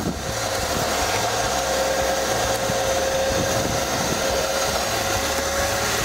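Ridgid WD3050 3-gallon, 3.5-horsepower wet/dry shop vac running steadily: air rushing through the hose and nozzle, with a steady high motor whine over it.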